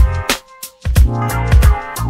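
Background electronic music with a steady drum beat and heavy bass, which drops out briefly about half a second in before the beat returns.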